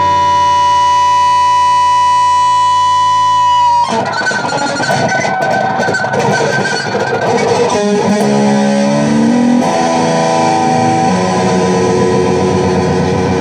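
Electric guitar played through an amp: a long held note rings steadily, then about four seconds in it breaks off into busier playing, with runs of notes and strummed chords.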